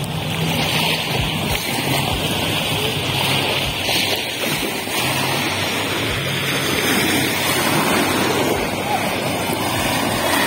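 Small waves from a passing motor ship's wake washing and splashing onto a pebble river shore.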